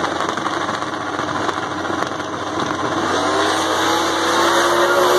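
Drag race car engines at wide-open throttle, their pitch rising as the cars accelerate down the strip and the sound growing louder from about three seconds in.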